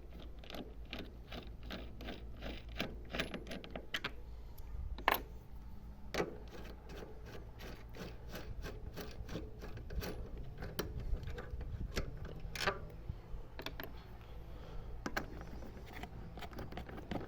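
Ratchet wrench undoing the screws of a car's plastic scuttle panel: runs of rapid ratcheting clicks, broken by a few sharper single clicks and knocks.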